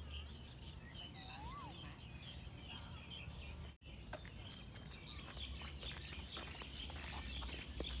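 Outdoor chorus of small birds chirping and twittering, with one whistled call that rises and falls about a second and a half in, over a steady low rumble. The sound drops out for an instant just before the middle.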